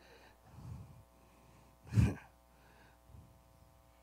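A man's short, sharp breath or exhale into a handheld microphone about two seconds in, between stretches of near-quiet with a faint steady hum.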